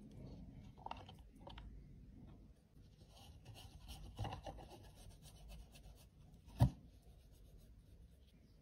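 Soft scratching and crumbling of loose pressed-powder crumbs being shaken and tapped out onto a compact pan and tabletop, with many faint fine ticks. One sharper knock comes late on.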